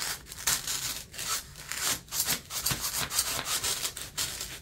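A scissor blade being worked back and forth inside a green styrofoam block to bore a channel for a popsicle stick, the foam scraping and rubbing against the metal in a run of irregular strokes.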